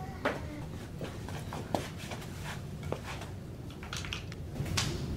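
Low steady room hum with a few scattered light clicks and taps, closer together near the end.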